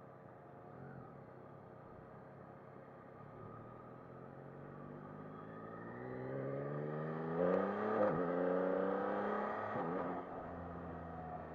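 Yamaha MT-09 SP's three-cylinder engine accelerating from a pull-away, its pitch climbing, with two brief upshifts about seven and eight seconds in. About ten seconds in the throttle closes and the engine settles to a lower, steadier note.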